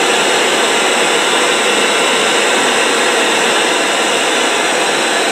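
Cheap TG 111 portable Bluetooth speaker switched to FM radio mode at full volume, putting out loud, steady static hiss with no station tuned in.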